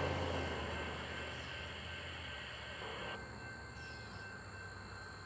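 A low vehicle rumble fading away slowly, its deep hum dropping out about three seconds in and leaving a faint background hiss.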